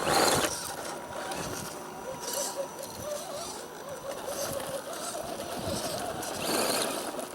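Small electric motor and gears of a 1/10-scale RC rock crawler whining as it crawls, the pitch wavering up and down with the throttle, with a brief loud rustle at the start and again near the end.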